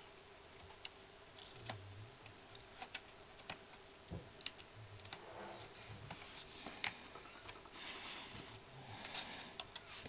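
Faint, irregular clicks and taps of fingers handling and pressing on a Hitachi Prius Note laptop's plastic case and metal inner cover plate, with a few brief scraping rustles.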